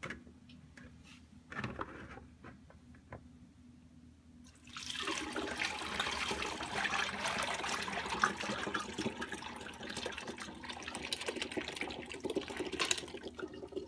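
Chilled wort poured from a stainless steel pot through a mesh strainer into a plastic fermenting bucket, straining out the hops. A few light knocks come first, then a steady splashing pour starts about five seconds in and runs for about nine seconds before stopping.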